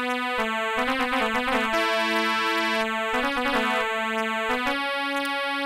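Instrumental music: a keyboard instrument playing a slow melody of held notes over a lower sustained note.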